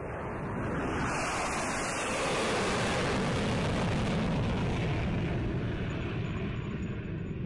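Jet airplane fly-by sound effect: a dense, rushing jet-engine noise that swells up over the first second or so and then holds steady.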